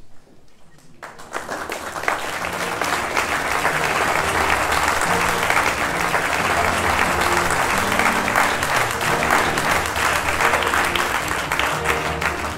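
Audience applause that builds from about a second in and holds steady, with music playing underneath.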